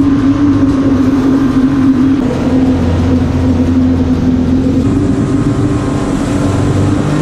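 Boat motor running steadily at speed, a strong, even engine note over the rush of water and wind.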